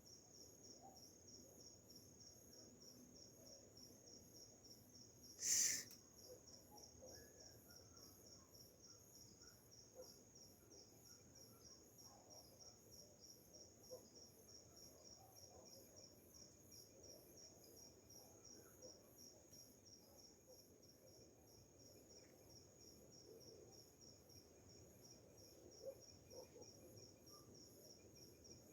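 Crickets trilling steadily in a fast, high-pitched pulsing chorus. About five and a half seconds in there is one brief, louder sharp sound.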